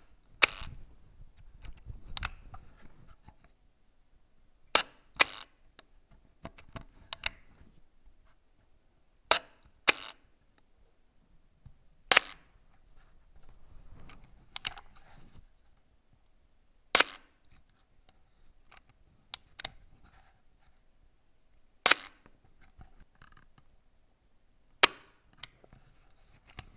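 Smena 8M's spring-operated leaf shutter firing several times, each a sharp metallic click with quieter handling clicks between. At the slowest speed each release is two clicks about half a second apart, the spring pulling the shutter plates open and letting them fall back; at faster speeds the two merge into one click.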